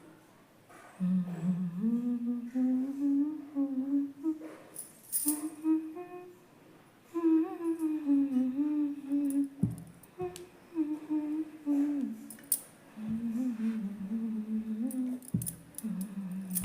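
A woman's voice humming a wandering melody, with a few short clicks along the way.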